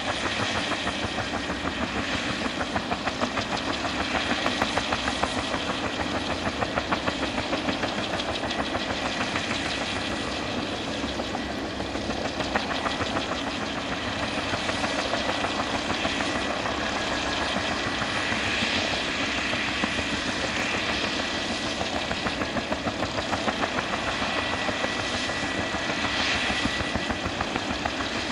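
Fuji-Bell 204B-2 helicopter running on the ground after engine start: the Lycoming T53 turboshaft gives a steady high whine, and the turning two-blade main rotor adds a regular pulsing beat.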